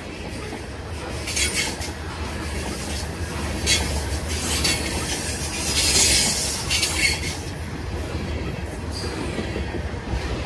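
Freight train rolling past with a steady low rumble of wheels on rails, broken several times by short bursts of high wheel screech.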